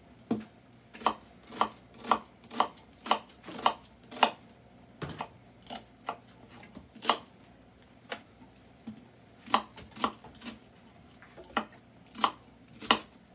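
Kitchen knife cutting an onion into chunks over a wooden cutting board. The cuts are a series of crisp, separate snaps, about two a second at first, then more irregular with short pauses.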